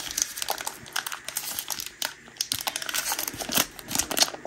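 Thin clear plastic bag crinkling in quick, irregular crackles as hands pull it open to get a cable out, louder near the end.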